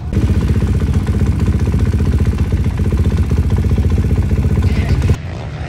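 Motocross bike engine running steadily close by, with no clear revving, then stopping abruptly near the end.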